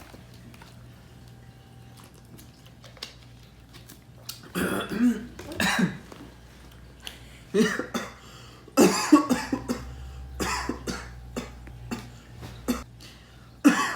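A person fake-coughing in several short bouts. The first bout comes about four and a half seconds in, and the loudest comes about nine seconds in, followed by smaller coughs.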